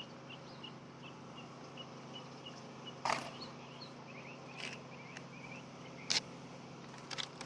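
Three sharp nailing knocks about a second and a half apart as shingles are fastened to the roof, the first one loudest. A faint, quick bird chirping runs underneath.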